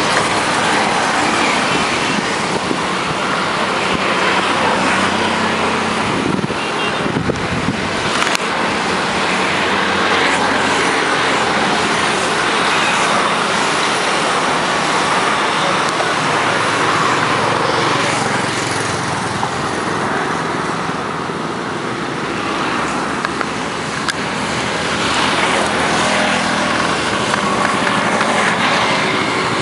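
Road traffic on a bridge: a steady wash of passing cars and buses, easing off briefly about two-thirds of the way through.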